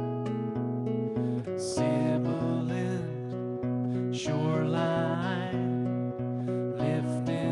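Acoustic guitar played live, picking out a steady run of notes that fills into a fuller strummed pattern about a second and a half in. A wavering melody line rides over it from about two seconds in.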